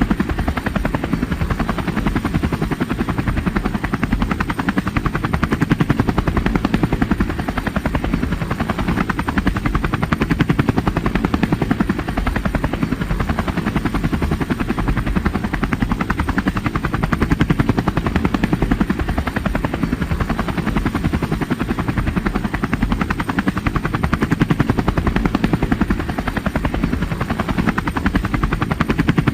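Helicopter in flight, its rotor blades making a steady, rapid chopping thump over the engine's drone.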